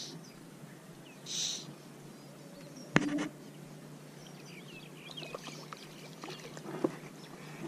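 Fly line swishing through the air on false casts, two short whooshes in the first second and a half, then a sharp click about three seconds in and another near the end. Small birds chirp faintly in the second half.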